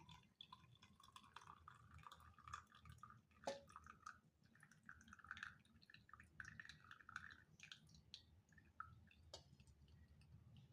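Faint trickling and dripping of liquid, coming and going, with small scattered ticks.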